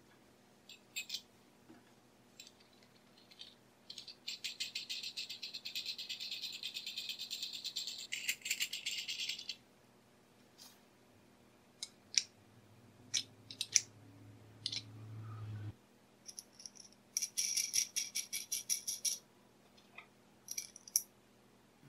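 Steel nuts spun by hand along a threaded rod, a fast metallic rattle of the threads in two runs of a few seconds each, with scattered clicks and taps of metal parts on a wooden bench in between.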